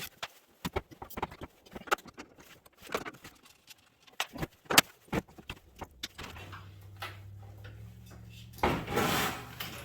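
Scattered sharp clicks and metallic knocks of hand tools and loose parts as an old microwave oven is taken apart for scrap. From about six seconds a low steady hum sets in, and a louder rushing noise comes briefly near the end.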